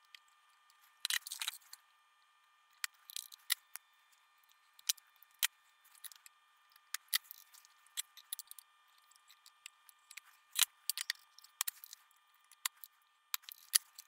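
Needle-nose pliers and small hand tools clicking and scraping on an amplifier's circuit board, with a short scratchy rustle about a second in and scattered sharp clicks after.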